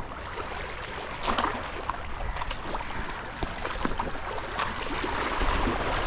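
Sea water lapping and splashing against a small fishing boat's hull, with a low steady rumble and a few scattered light knocks and clicks.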